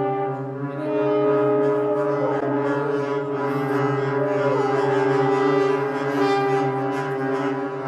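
Brass instruments holding long, overlapping low notes, a slow drone-like chord in which a few notes slide in pitch.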